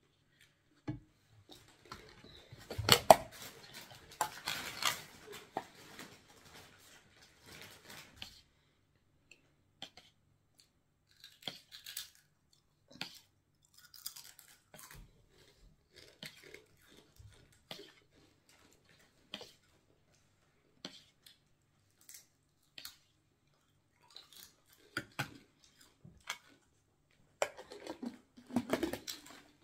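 Plastic yogurt tub being handled: a burst of scraping and clatter about three seconds in as the lid comes off, then a metal spoon scooping creamy yogurt and clicking against the tub and a glass in scattered strokes, and more clatter near the end as the lid is pressed back on.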